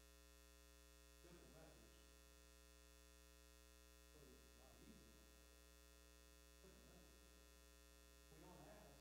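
Near silence: a steady electrical mains hum, with faint, distant talking breaking in briefly about four times.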